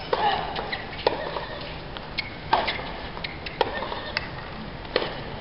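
Tennis rally on a hard court: a serve followed by five sharp strikes of rackets on the ball, a little over a second apart, with lighter ticks between them.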